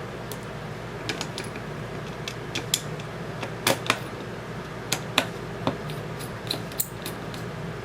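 Irregular light clicks and taps of small plastic and metal parts as a polymer airsoft magazine is handled and put back together, about a dozen sharp ticks over a steady low hum.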